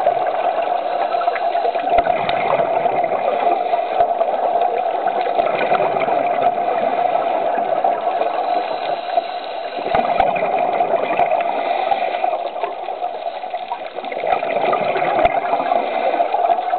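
Muffled underwater rushing and bubbling from a scuba diver's regulator exhaust, heard through an underwater camera housing. It swells and eases, dipping briefly twice in the later part.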